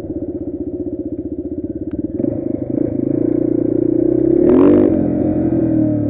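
Yamaha TT 350's single-cylinder four-stroke engine pulling at low revs, its separate firing pulses clearly heard. About two seconds in the throttle opens and the engine note rises. A brief, louder rev goes up and back down about four and a half seconds in.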